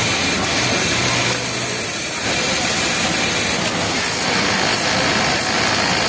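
Industrial flatlock sewing machine running steadily while hemming a T-shirt sleeve, heard as a dense, even mechanical noise.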